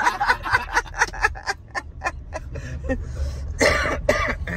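A person laughing in quick bursts, about four or five a second, with a couple of louder bursts near the end, over the low steady rumble of a car's engine and road noise inside the cabin.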